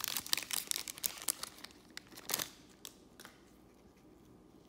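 Foil trading-card pack wrapper crinkling and tearing as it is ripped open, a dense crackle for about two and a half seconds, then only a few faint clicks.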